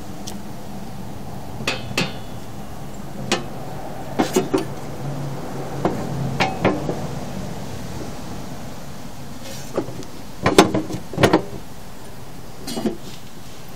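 Scattered sharp plastic and metal clicks and clacks, some single and some in quick clusters, as the hinged covers of weatherproof electrical boxes are flipped open and snapped shut, over a steady low hum.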